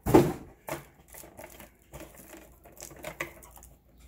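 Cardboard packaging being handled and pushed aside, with a loud knock and rustle at the start, then scattered light clicks and rustles as the plastic-wrapped RC truck is handled.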